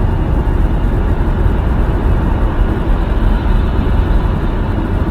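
Steady low road and tyre rumble inside the cabin of a moving Nissan Leaf electric car.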